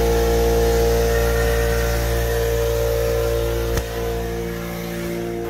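Portable electric air compressor running steadily just after switching on, its motor and piston pump giving an even, many-toned hum, with a single sharp click about four seconds in.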